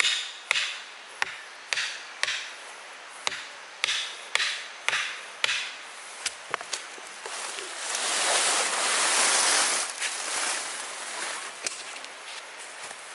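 Chopping into wood with a blade, about ten sharp strikes at roughly two a second, followed by a few lighter knocks. About two thirds of the way in comes a few seconds of louder rustling and scraping noise.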